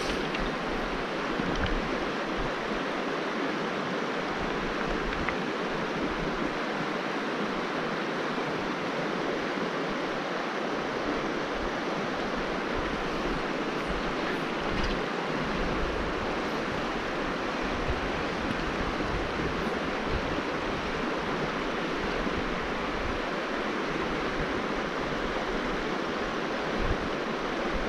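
Fast-flowing creek running high and hard, rushing over a shallow stony riffle as a steady, even rush of water. Wind buffets the microphone now and then.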